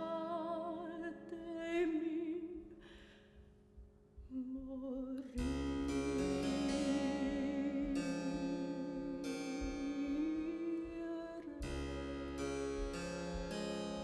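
Soprano singing an early Baroque Italian solo song with harpsichord accompaniment, her voice holding long notes with vibrato. About four seconds in, the sound fades almost away. Just after five seconds a harpsichord chord is struck and the voice holds one long note until new chords come in near the end.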